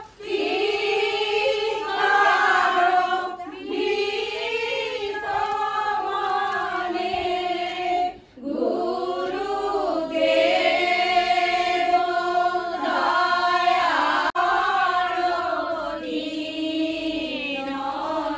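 A group of women singing a kirtan, a Hindu devotional song, together, with long held notes and a brief pause about eight seconds in.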